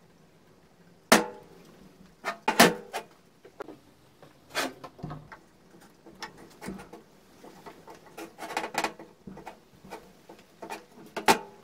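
Scattered sharp metal knocks and clanks as the steel reel of an old cylinder lawnmower is handled and turned. There is a loud knock about a second in, a quick run of knocks a little later and again past the middle, and a last knock near the end.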